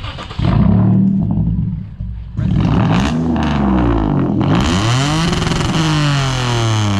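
Car engine revved hard over and over, its pitch swinging up and down. It starts about half a second in, dips briefly a couple of seconds later, then runs on with a louder hiss added from the middle.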